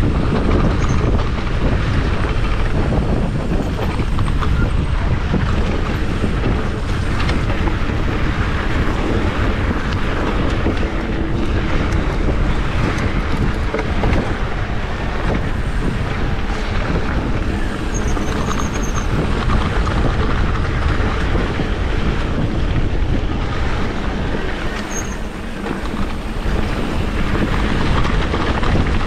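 Mountain bike riding fast down a rough dirt singletrack: steady tyre rumble and rattling of the bike over the trail, with wind buffeting the camera's microphone.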